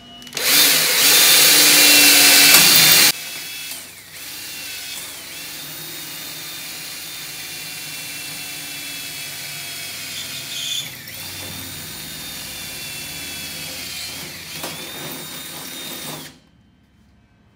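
Cordless drill with a 1/8-inch bit drilling through two layers of sheet metal, a patch panel and the body behind it. For the first three seconds it is very loud and harsh as the bit cuts; then the motor whines more steadily, with brief dips in pitch, and stops near the end.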